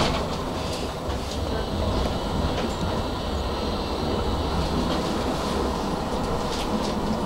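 Tram heard from inside the car as it rolls along street track: a steady low rumble of wheels and running gear, with a few clicks and a faint high whine in the middle.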